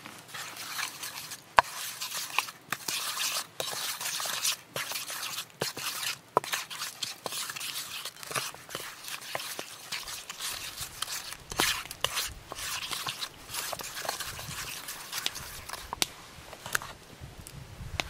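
Raw beef strips being mixed by hand with spices and oil in a stainless steel bowl for jerky: a run of irregular wet squishing and rubbing, with many short sharp clicks against the metal. The loudest click comes about one and a half seconds in.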